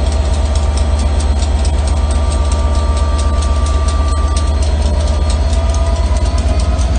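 Class 67 diesel-electric locomotive passing slowly at close range, its two-stroke V12 diesel engine running with a strong low rumble and a fast, even beat, and a faint steady whine over it.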